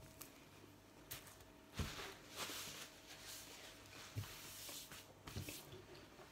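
Refrigerator compressor humming steadily in the room, with a few soft knocks and rustles from chewing and handling flaky pastry.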